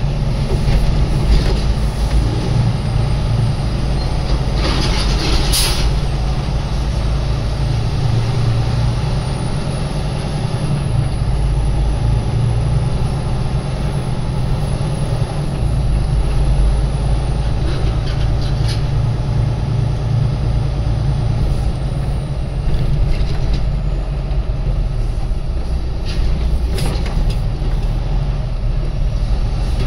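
Heavy truck's engine running steadily, a low drone heard inside the cab while it rolls slowly, with a brief sharp sound about six seconds in.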